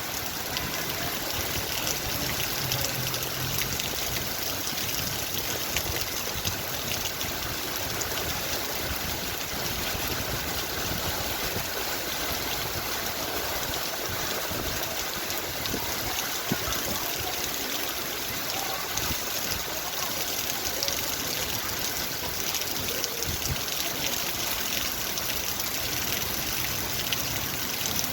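Heavy rain pouring down in strong wind: a dense, even hiss that holds steady throughout.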